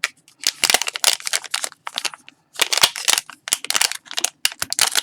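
Mystery pin blind packaging being torn open and crinkled by hand: irregular bursts of crinkling and ripping, with a brief pause about two seconds in.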